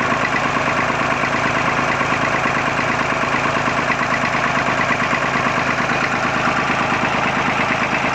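Massey Ferguson 35's three-cylinder Perkins diesel idling steadily with a rapid, even knock. The engine has a recurring misfire on one cylinder that has survived swapped injectors, which the owner suspects is a small blockage in the injection pump.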